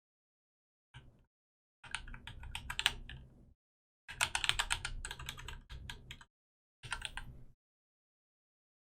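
Computer keyboard being typed on in quick bursts of rapid key clicks, four runs of keystrokes with short pauses between.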